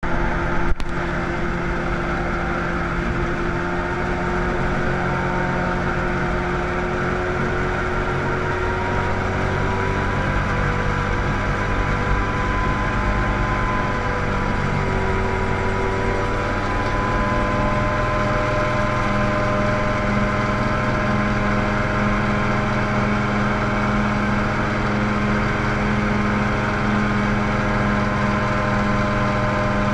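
Mosquito ultralight helicopter's engine and rotor running steadily, heard from inside the cockpit. The engine note rises a little between about a third and two-thirds of the way through as power comes up. A single sharp click comes just under a second in.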